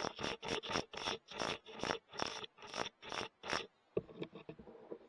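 Rhythmic scratchy rubbing close to the microphone, about three strokes a second, which stops nearly four seconds in and gives way to faint rustling.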